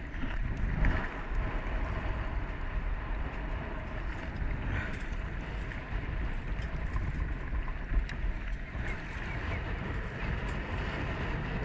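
Wind buffeting the microphone over choppy water lapping against a kayak hull, a steady rushing noise with a heavy low rumble, and now and then a light knock.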